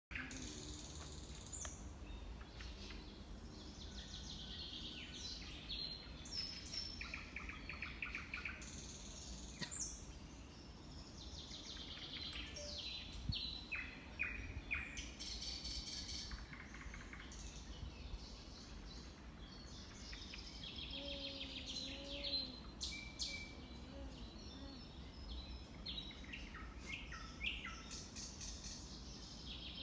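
Several wild songbirds singing and calling, with overlapping whistled phrases, trills and short chirps, over a steady low background rumble.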